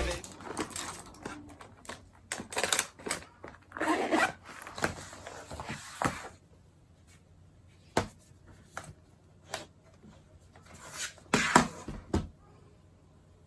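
Close handling noises: irregular rustling for the first few seconds, then a few separate light clicks and taps.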